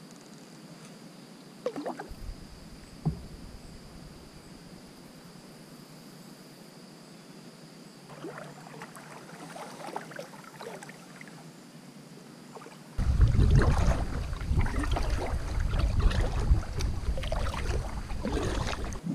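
Kayak paddle strokes dipping and splashing in calm river water, with two sharp knocks in the first few seconds. From about two-thirds of the way through, a sudden low rumble of wind on the microphone comes in under louder paddle splashes.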